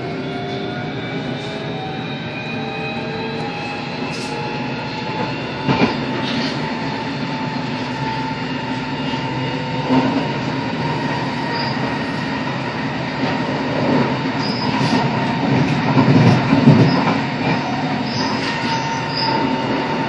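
Running noise inside a moving train, with a whine that rises in pitch over the first several seconds and then holds steady. A few knocks and rattles come from the carriage over the track.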